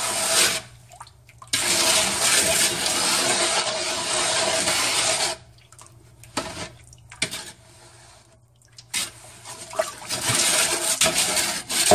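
Water running in two long spells of several seconds, with a few clinks and knocks in the pause between.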